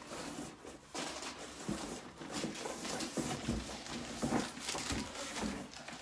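Cardboard shipping box being handled: irregular rustling, scraping and light knocks of cardboard as the outer box is lifted away from an inner box.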